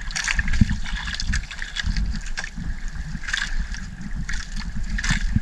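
Gill net rustling and brief splashy knocks on the deck of a small fishing boat as a small tuna is worked free of the net, four short bursts in all, over a steady low rumble.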